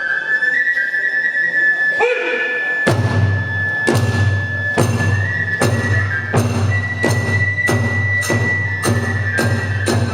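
Kagura music: a bamboo transverse flute holds a high note, joined about three seconds in by steady drum beats with ringing hand cymbals, about one beat a second, quickening near the end.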